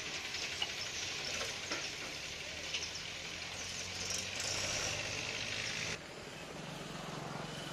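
Dosa batter sizzling on a hot griddle as it is spread into a large round, a steady hiss with a few faint clicks. About six seconds in the hiss drops off and a low steady hum takes over.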